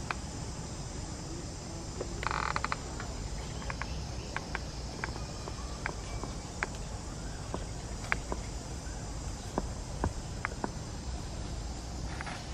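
Steady chorus of insects, with scattered short clicks and ticks and a brief rapid chatter a little over two seconds in.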